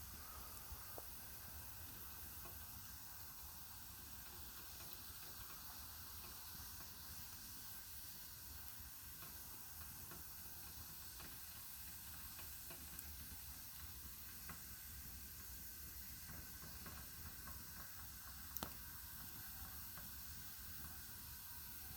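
Wood campfire burning with a faint, steady hiss and an occasional sharp crackle or pop, the loudest near the end.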